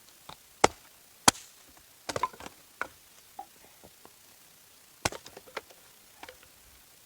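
Wood being chopped: two sharp strikes in the first second and a half, a quick run of lighter knocks and clatter, then another strike about five seconds in, followed by smaller knocks.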